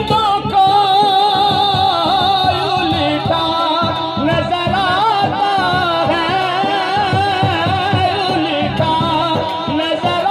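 Qawwali music: a voice drawing out a long, wavering melismatic line over a steady hand-drum beat.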